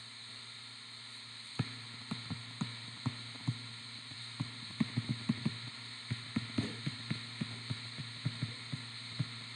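Stylus tapping and clicking against a touchscreen while handwriting words, short irregular taps a few per second starting about a second and a half in, over a steady low electrical hum.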